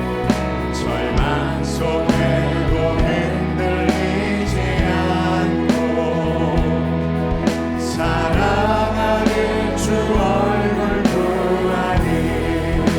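Live church praise band playing a contemporary worship song, with singers, bass notes and a steady drum beat.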